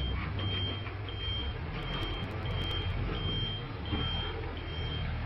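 Truck's reversing alarm beeping at an even pace, about three beeps every two seconds, over the low, steady running of the truck's engine.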